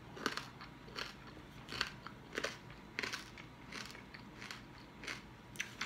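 Close-miked chewing of crunchy food, with a crisp crunch about twice a second.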